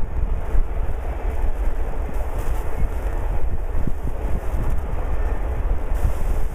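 Doublestack container train's cars rolling past on the rails, a steady low rumble, with wind buffeting the microphone.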